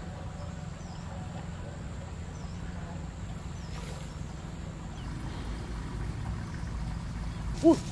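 Outdoor ambience: a steady low rumble with a few faint, high bird chirps. Near the end comes a short, loud cry that rises and falls in pitch.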